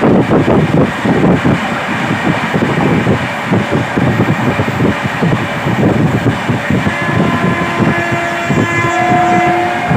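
Passenger train running on the rails: a steady loud rumble with rapid wheel clatter. About three-quarters of the way through, steady high tones join in.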